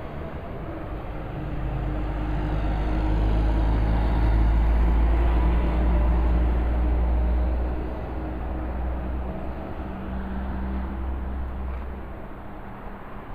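A motor vehicle's engine rumble that swells over a few seconds, is loudest in the middle, and eases off about eight seconds in, with a lower steady hum carrying on after.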